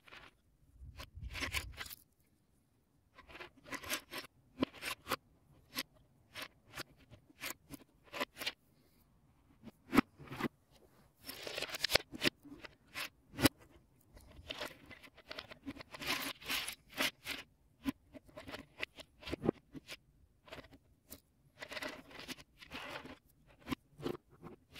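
Plastic Lego Technic parts being handled: many short, sharp clicks and snaps as bricks, pins and gears are worked on, with three longer scraping rattles in between.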